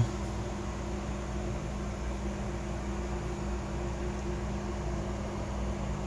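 Steady low hum with a few held tones and a faint hiss, unchanging throughout: background room tone.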